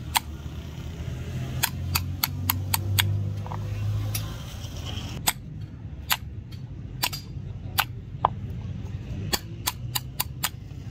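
Hammer striking a steel tool held against the nails of a horseshoe on a horse's hoof: sharp metallic taps in quick runs of two to five, with short pauses between.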